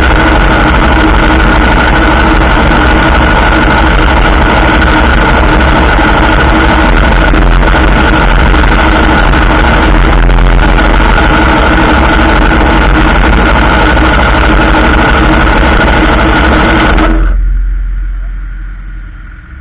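Aprilia Tuono motorcycle engine idling steadily with the bike standing still. Near the end the sound drops away sharply and fades.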